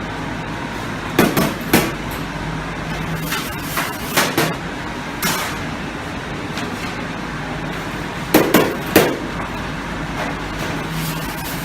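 Pellet burner firing into a bakery oven's heat exchanger: a steady rush and low hum, broken three times by pairs of sharp knocks.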